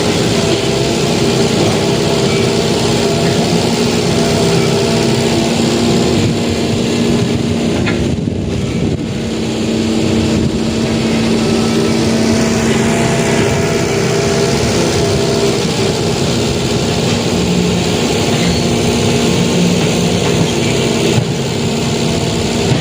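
Excavator's diesel engine running with a steady hum, dipping briefly about eight seconds in.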